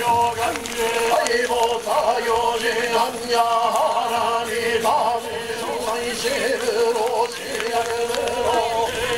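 A group of voices chanting a Buddhist sutra in unison at the temple's goma fire rite, on one steady held pitch with phrases rising and falling above it.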